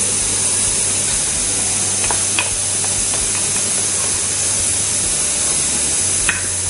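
Steady high hiss over a faint low hum, with a few faint light taps about two seconds in and again near the end.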